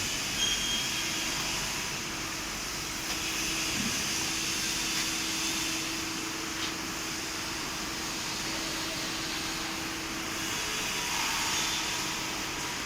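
Steady machine noise from a CNC press brake's hydraulic system: a constant hum under an even hiss, swelling a little about eleven seconds in.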